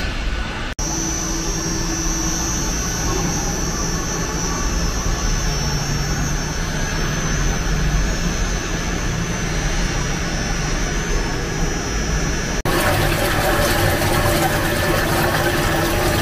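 11 kW basket mill running under test: a steady mechanical hum and whir with a thin high whine. About twelve seconds in it becomes louder and rougher as the mill works the paste in its tank.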